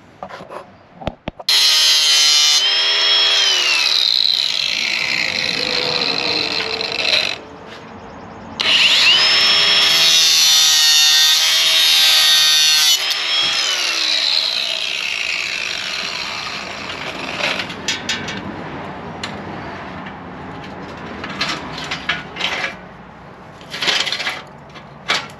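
Handheld electric power tool spinning up with a rising whine, running for several seconds with a harsh grinding hiss, then winding down; this happens twice, about a second apart. Quieter rubbing and light clicks follow.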